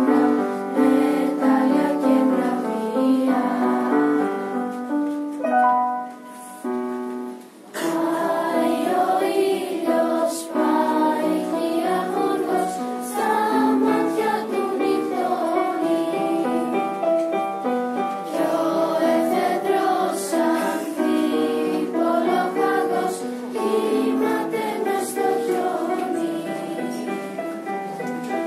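Casio electronic keyboard playing a tune, dropping away briefly about six seconds in. Then a choir of school pupils sings with the keyboard accompanying.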